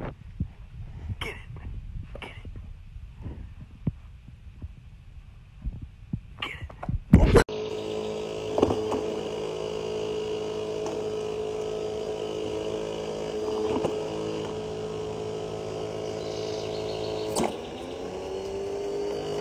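A few loud knocks and rustles close to the microphone, then the electric motor of an automatic dog ball launcher humming steadily. Near the end there is a click and the motor's pitch rises as it spins up.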